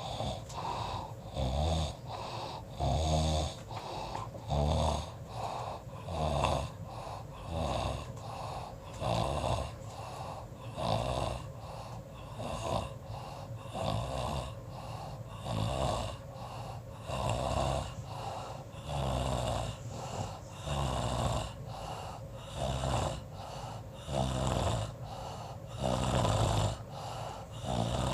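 Snoring: a steady train of snoring breaths, one about every two seconds, each a noisy swell that rises and falls.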